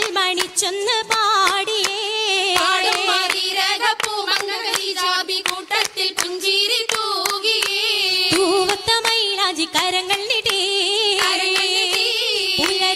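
Oppana song: a continuous sung melody with wavering pitch, over the dancers' rhythmic hand-clapping at about two to three claps a second.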